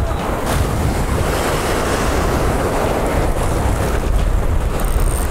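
Surf waves washing and breaking in shallow water, with wind buffeting the microphone in a steady low rumble.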